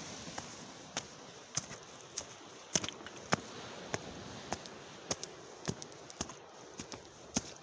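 Footsteps climbing stone slab steps: sharp, regular steps a little under two a second, over a faint steady hiss.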